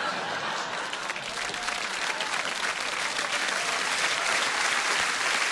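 Audience applauding, a dense patter of claps that swells slightly toward the end.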